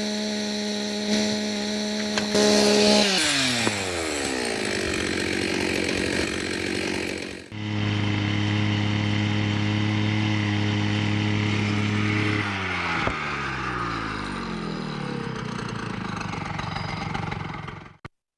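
Chainsaw running with its chain removed: it is held at high revs, then the throttle is let off and the revs fall away to idle. After a sudden break, the saw is held high again and again drops back to idle, before the sound cuts off.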